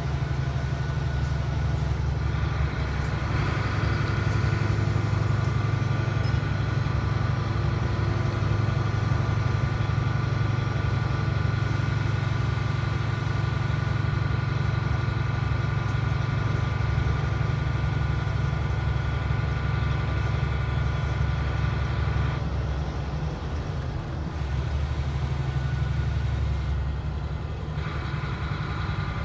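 A DAF SB4000/Jonckheere bus's diesel engine and drivetrain running, heard from inside the passenger cabin: a steady low drone with a few steady higher tones over it. About 22 seconds in, the higher tones fall away and the sound drops a little, then they return near the end.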